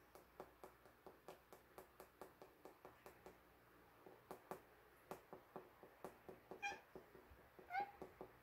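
Fingers tapping the side of a spice jar held over a measuring spoon, a quick run of light taps about five a second that shake ground spice out. A cat meows faintly twice near the end.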